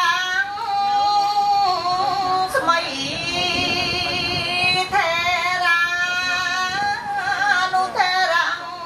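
A woman's solo voice chanting Khmer smot, the melodic Buddhist recitation in praise of the Triple Gem. She holds long, wavering, ornamented notes in phrases of two to three seconds, with brief breaths between them.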